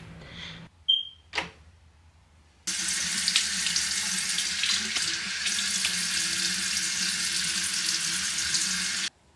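Bathroom sink tap running, water pouring into the basin for about six seconds, then cutting off suddenly near the end. A couple of small clicks come about a second in, before the water starts.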